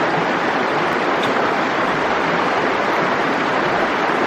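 A small creek's water rushing steadily over rocks, an even unbroken wash of noise.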